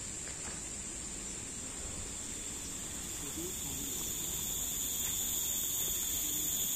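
Insects chirring in a continuous high-pitched drone, getting a little louder toward the end.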